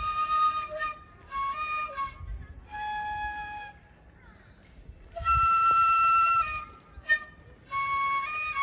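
Background music: a solo flute playing slow, held notes in short phrases, with a pause of about a second in the middle.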